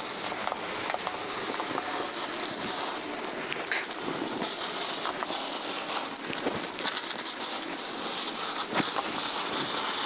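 Blue painter's tape being peeled up off a concrete slab from both sides of a freshly sealed joint: a continuous crackly ripping. The sealant has skinned over, so the tape comes away and leaves a clean line.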